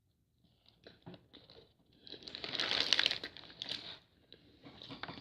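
Crinkling and crunching as a paper-wrapped fast-food chicken sandwich is handled and bitten into close to the microphone. The irregular crackles start about a second in and are densest in the middle.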